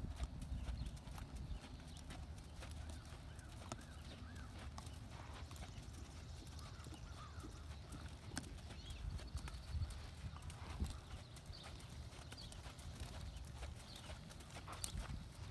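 Soft hoofbeats of a sorrel American Quarter Horse gelding moving around a sand arena under a rider.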